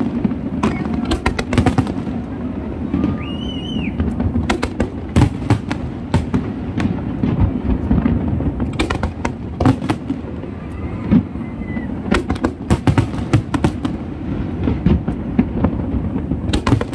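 Fireworks display going off: a dense string of loud bangs and crackles over a continuous low rumble, with a short high whistle about three seconds in.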